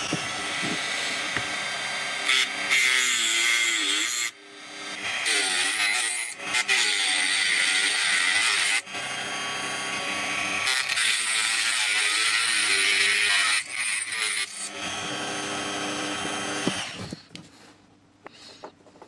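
Rotary tool with an abrasive cut-off disc running and grinding through a copper housing: a harsh cutting hiss over the motor's whine, in several long stretches with short breaks as the disc is eased off the metal. The tool stops near the end.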